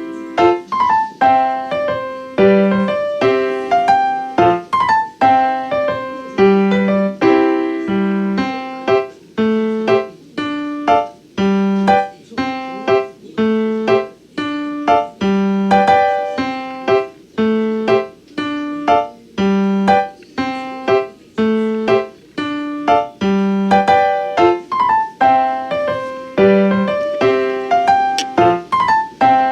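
Background piano music: a melody of separate, evenly paced notes over repeated low notes.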